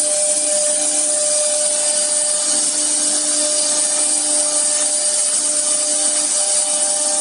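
CNC router's 4.5 kW HQD spindle cutting wood: a steady whine over the continuous hiss of the cutter working the material.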